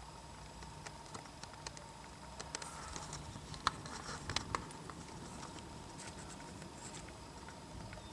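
Handling noise: scattered light clicks and taps, bunched together about three to four and a half seconds in, over a faint steady whine.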